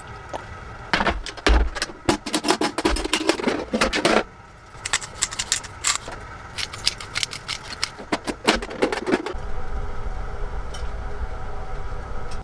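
Hand-twisted pepper grinder cracking peppercorns in two spells of quick crunching clicks. A steady low hum sets in about three-quarters of the way through.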